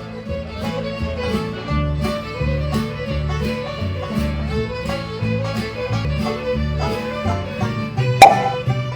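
Background music with a steady beat and a moving bass line, and a short loud sound near the end.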